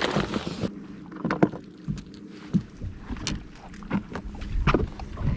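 Rustling and rattling of a soft tackle backpack and a clear plastic lure box being handled, then scattered clicks and knocks of gear on a boat deck.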